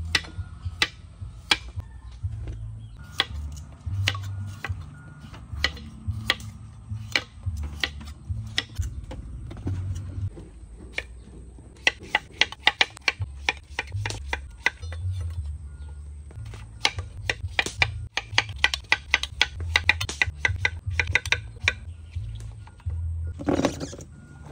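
Knife chopping on a cutting board: single cuts spaced apart at first, then quick runs of about five or six strokes a second, over soft background music.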